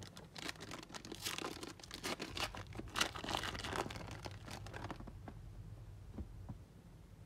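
Trading-card pack wrapper being torn open and crinkled: a dense, irregular crackling for about five seconds that then dies down to a few light clicks.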